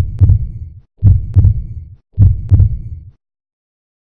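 Heartbeat sound effect: three slow, loud double thumps (lub-dub) about a second apart, stopping about three seconds in.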